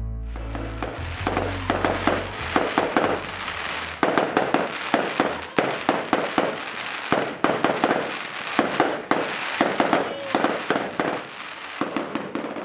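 Fireworks going off: a dense, rapid run of sharp pops and crackles over a steady hiss.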